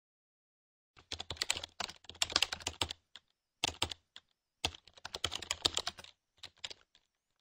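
Computer keyboard typing sound effect: rapid runs of key clicks in several bursts with short gaps, starting about a second in.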